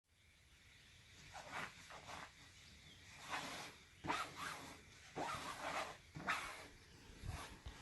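A Yorkshire terrier making a series of short, breathy, noisy sounds, with no clear barks.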